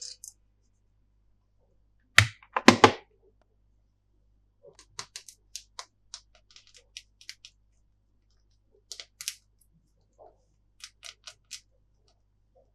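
Hard plastic candy packaging being handled: two loud cracks or knocks about two seconds in, then a scattering of light clicks and taps.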